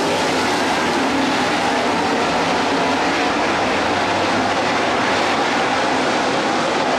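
A field of dirt late model race cars' V8 engines running at racing speed around the track, several engines blending into one loud, steady drone.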